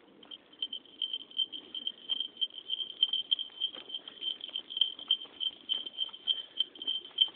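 A Shih Tzu out on a walk: a high jingling note pulses about three to four times a second in step with its gait, over soft pattering footfalls.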